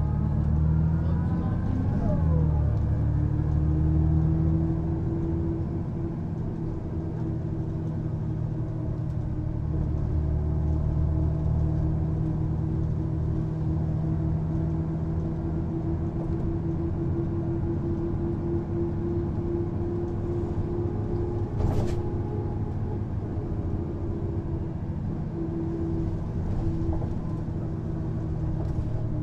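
Mercedes-Benz O405NÜ bus's horizontal six-cylinder diesel engine pulling under way, its pitch climbing and then dropping at a gear change about two seconds in, then settling into a steady drone. A single sharp click about three-quarters of the way through.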